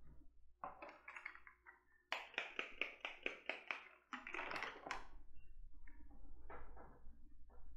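Whiteboard being wiped by hand with a cloth: quick back-and-forth rubbing strokes, about four a second at their most regular in the middle, fading to fainter scattered strokes near the end.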